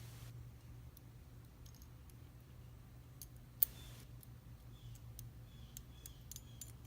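Light, scattered metallic clicks and taps of small lock pins and tools handled while a pin-tumbler lock is taken apart, with one sharper click a little over halfway through, over a steady low hum.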